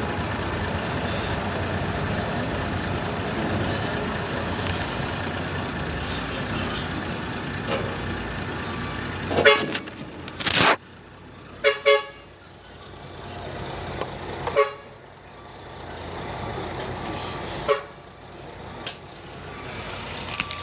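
Motor vehicle engine running steadily, then several short horn toots, some in quick pairs, in the second half.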